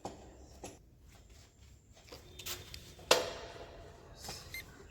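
Scattered light clinks and taps of metal hand tools on motorcycle parts, with one sharp, loudest clink about three seconds in that rings briefly.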